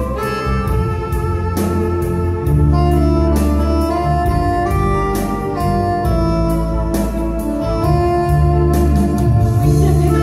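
Instrumental introduction to a song: sustained organ-like keyboard chords over a low bass line, changing chord every second or two.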